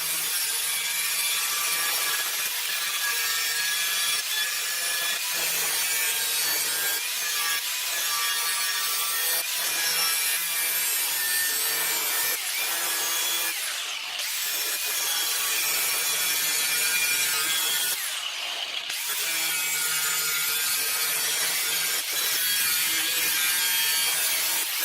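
Handheld angle grinder grinding a blade edge into a 1/8-inch mild steel bar, a steady grinding rasp with a high ring over it. It eases off briefly twice, about two-thirds of the way in.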